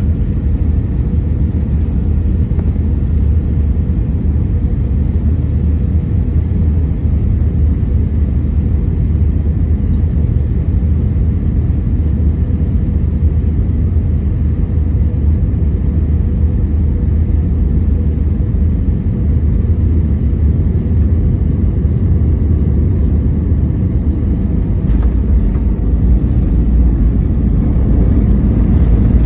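Steady low rumble of airliner noise from an Airbus A320-232 during its landing, with a faint steady hum over it, growing a little louder near the end.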